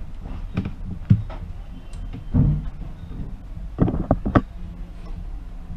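Scattered knocks and clicks of a tablet being handled on a wooden workbench and a charging cable being plugged into it, with a heavier knock in the middle and a quick cluster of clicks later on, over a low steady hum.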